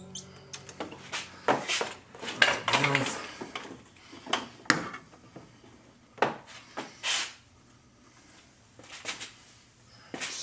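Irregular clicks, knocks and clatters of hard plastic and metal parts being handled while a fluid extractor's probe hose and fittings are set in place.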